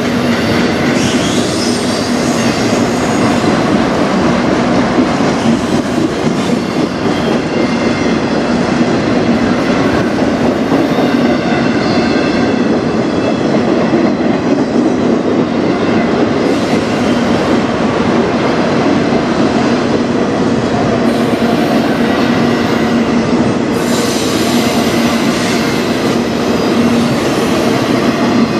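Freight train of autorack cars rolling past close by: a steady, loud rumble and rattle of steel wheels on the rails, with faint high-pitched wheel squeal now and then.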